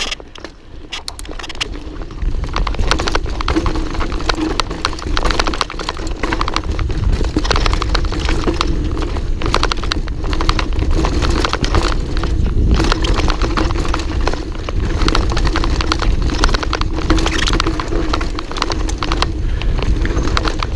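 Mountain bike clattering and rattling at speed down a rough dirt trail, with wind rumbling on the camera's microphone. It gets louder about two seconds in.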